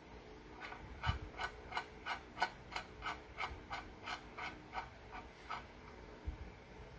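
Bicycle headset locknut being screwed down by hand on the head tube, making a regular tick about three times a second as it turns, then stopping.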